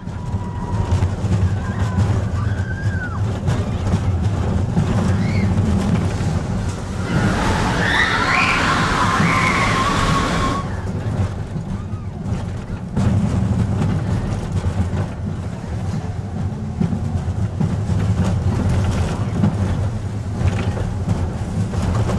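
Magnum XL-200 steel hypercoaster train rumbling along its track at speed, heard from the front seat. From about seven seconds in, riders scream for a few seconds.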